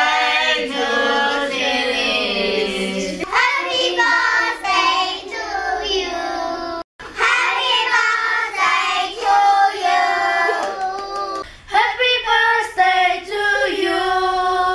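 Groups of children singing together in unison, with long held notes. The singing stops dead for a moment about seven seconds in, then carries on with different voices.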